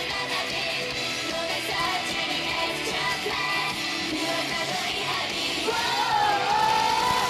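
Female idol group singing live into microphones over loud pop-rock accompaniment, with one long held note near the end.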